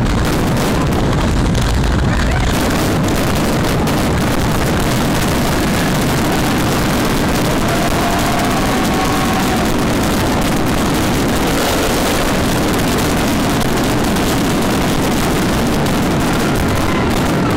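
Dense fireworks barrage, many aerial shells bursting so close together that they blur into one steady loud rumble and crackle.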